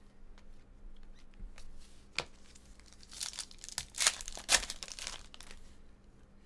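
Foil trading-card pack wrapper crinkling and tearing open in a few sharp crackling bursts about three to four and a half seconds in. Before that come light clicks of the cards being handled.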